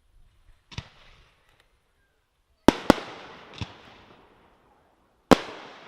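Fireworks going off: a sharp bang about a second in, two loud bangs in quick succession near the middle, and another loud bang near the end, each trailing off in a long fading rumble.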